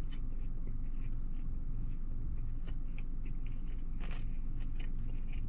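Close-up chewing of a crispy bacon sandwich: a run of small crunches and mouth clicks, with one louder crunch about four seconds in, over a steady low hum inside the car.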